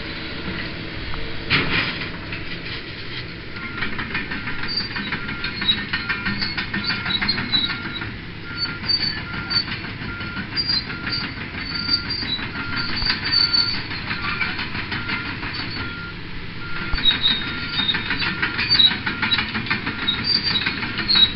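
Caterpillar 330L excavator running with metal-on-metal clatter and high squeals, typical of steel tracks moving. From about four seconds in, a short beep repeats steadily, under two a second.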